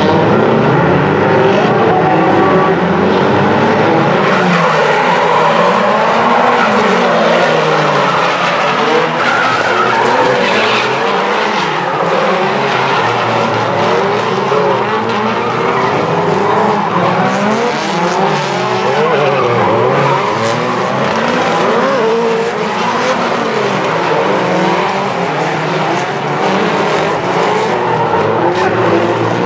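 Several drift cars sliding through the corners together. Their engines rev up and down over one another, with the tyres sliding and scrubbing throughout.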